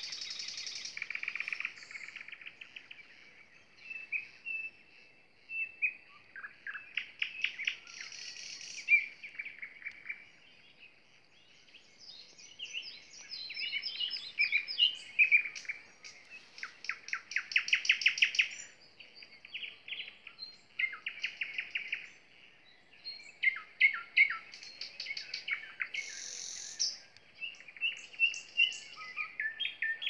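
Nightingale singing: loud phrases of rapidly repeated notes and rattling trills, separated by short pauses, with a quieter lull about ten seconds in.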